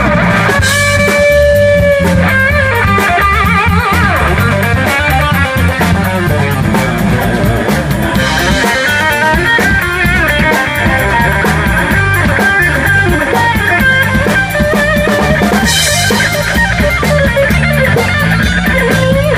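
Live rock band playing: an electric guitar solo over drum kit and bass guitar, opening on a long held note, then fast wavering, bent notes.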